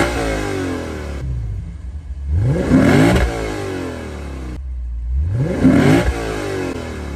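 The 2023 Lexus IS 500 F Sport's 5.0-litre naturally aspirated V8 is revved while parked, heard from behind its stock exhaust. One rev falls back to idle at the start. Two more follow about three seconds apart, each climbing quickly and dropping back to a steady idle.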